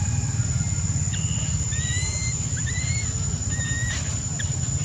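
About five short, whistle-like cries from an infant long-tailed macaque, each rising slightly in pitch. They sit over a steady low rumble and a constant high, thin insect whine.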